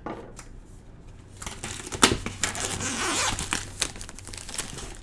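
Product packaging being torn and opened by hand: a sharp snap about two seconds in, then a couple of seconds of tearing and crinkling that eases off near the end.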